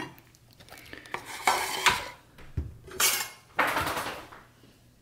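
Cutlery and a plate clinking and scraping on a kitchen counter, as a few short scrapes and knocks.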